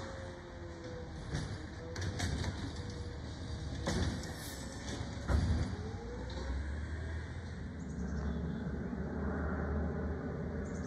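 Rear-loader garbage truck's engine running, a low rumble that settles into a steadier hum about halfway through, with a few sharp knocks near the middle.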